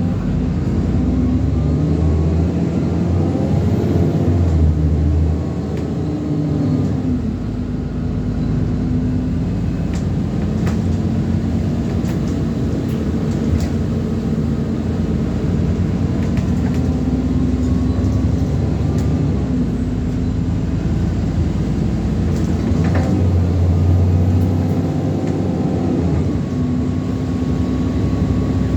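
Alexander Dennis Enviro400 Trident double-decker bus's diesel engine. It accelerates hard twice, the engine note rising each time alongside a high whine that rises and falls, and runs more steadily in between. Short rattles and knocks from the bus body come through along the way.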